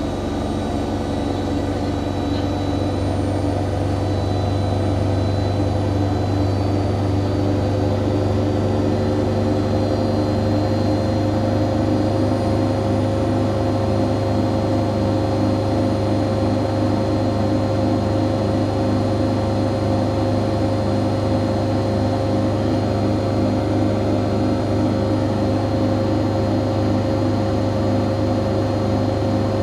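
Siemens Siwamat IQ 716 washing machine running with a steady motor hum and whine, the pitch creeping up over the first few seconds and then holding level.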